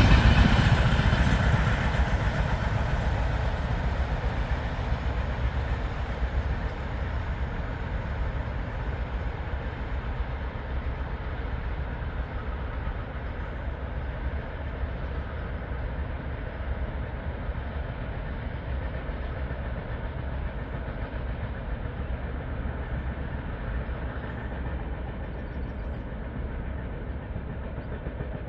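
A train running on the adjacent railway line, its rumble and wheel clatter loudest at first and fading steadily as it moves away.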